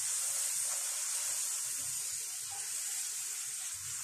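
Luchi deep-frying in hot oil in a pan: a steady high sizzle as the dough puffs up.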